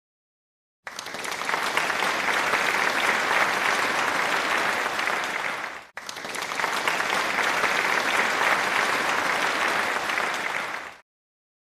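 Applause, heard as two stretches of about five seconds each with a sharp break between them, each starting and cutting off abruptly like an edited-in sound effect.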